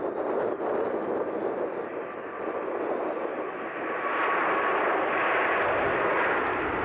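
Airbus A380 jet engines running at takeoff power as the airliner climbs out. A steady rush of engine noise carries a faint whine and grows louder about four seconds in.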